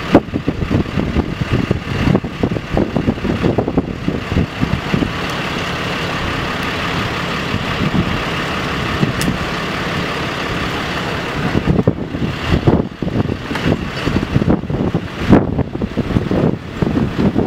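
Heavy truck engine idling steadily, most likely the parked fire engine, with gusts of wind buffeting the microphone at the start and again over the last few seconds.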